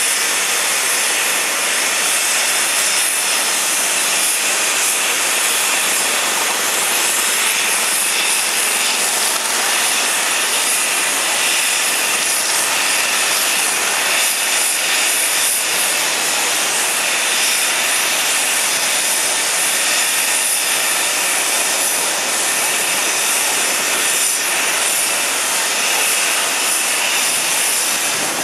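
Steady jet-turbine hiss and whine of aircraft on an airport apron, even and unchanging throughout.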